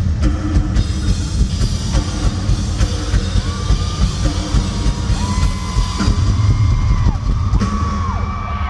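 Rock drum kit played live in a solo: fast, heavy tom and bass drum hits with cymbal crashes, without a break.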